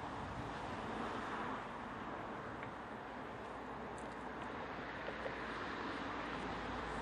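Steady outdoor wind noise across the microphone, with a faint, even low rumble underneath.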